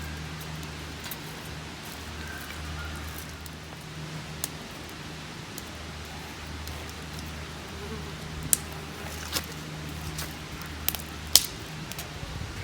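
A handful of sharp, isolated cracks, spaced irregularly with the loudest near the end, over a steady low hum.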